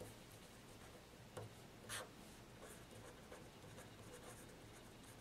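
Faint scratching of a felt-tip marker writing on paper in short strokes, with two louder strokes about one and a half and two seconds in, over a faint low steady hum.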